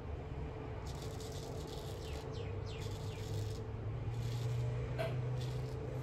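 Straight razor scraping through lathered stubble on the jaw and neck, in a few short scratchy strokes.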